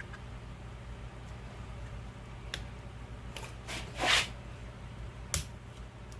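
Hand-tool handling while crimping the clamp band on a CV axle boot. There is a click, then a short rasping squeeze about four seconds in, which is the loudest sound, then a sharp metallic click near the end, all over a steady low hum.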